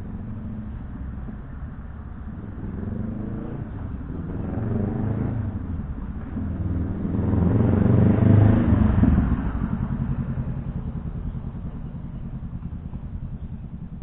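Honda Rebel 500 parallel-twin motorcycle with an aftermarket K-Speed exhaust accelerating past, its engine pitch rising twice as it goes up through the gears. It is loudest as it passes about eight seconds in, then fades to a low rumble.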